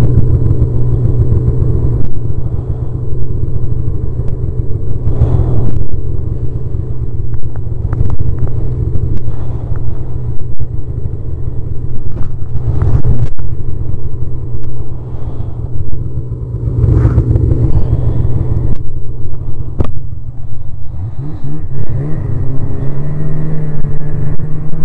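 Snowmobile engine running at speed under heavy wind rumble on the microphone, with a few brief louder surges. Near the end the engine note rises as it speeds up.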